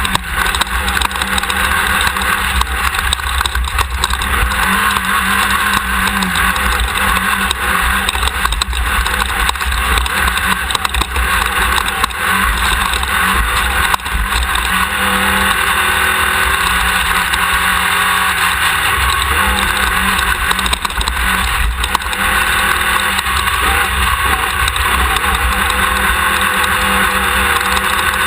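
Onboard sound of a Class 1600 off-road race car's air-cooled VW flat-four running hard at speed. It is loud and continuous, the engine note shifting up and down now and then, with a few sharp knocks.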